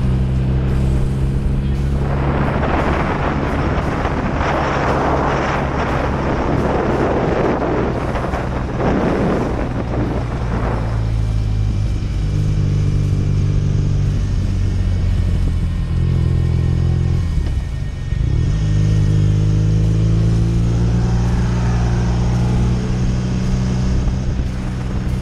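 Heavy rock music with low sustained notes that change every couple of seconds, mixed with a BMW R nineT's boxer-twin engine running at a steady cruise.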